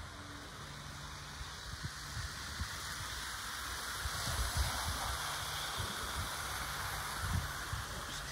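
OO gauge model locomotive and coaches running along the garden track: a steady rolling rattle with a faint motor hum, louder as the train passes close about four seconds in. A few low thumps are heard.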